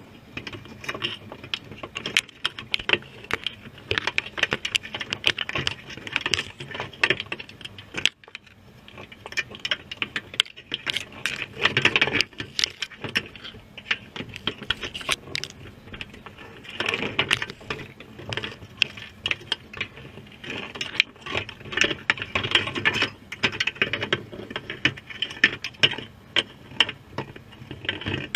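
Dense, irregular underwater crackling: a continuous scatter of sharp clicks and ticks that swells and fades in clusters.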